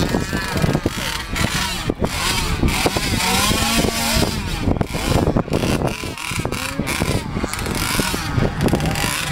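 Engine of a radio-controlled speedboat running at speed, its pitch rising and falling repeatedly as the boat runs and turns across the water, with wind buffeting the microphone.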